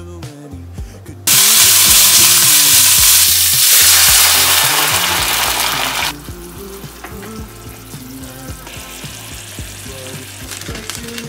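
Food sizzling in a hot frying pan. A loud sizzle starts suddenly about a second in and dies away over the next five seconds. Later a softer sizzle comes as a silicone spatula stirs the vegetables in the pan, with background music throughout.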